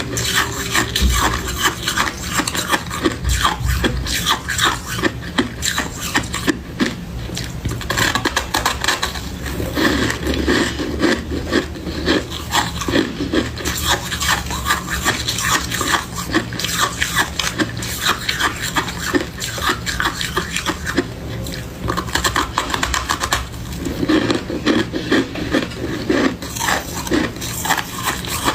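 Close-miked crunching and chewing of powdery freezer frost: a dense, unbroken stream of crisp crackles, heavier in a few stretches.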